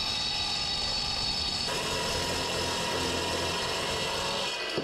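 Metal-cutting chop saw running and cutting through solid aluminum round bar, a steady noise with a high whine over it. The sound changes about two seconds in.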